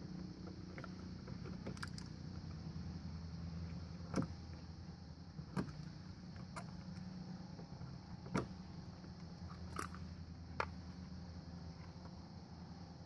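A handful of sharp clicks and taps, spaced a second or more apart, over a steady low hum.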